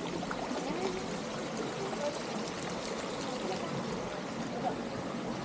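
Fountain water running and splashing steadily.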